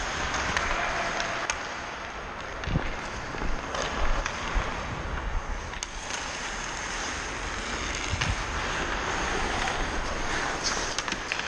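Ice skate blades carving and scraping on the rink ice as the skater moves, with wind rushing over the microphone. A few sharp clacks stand out over the steady scraping, typical of hockey sticks and puck.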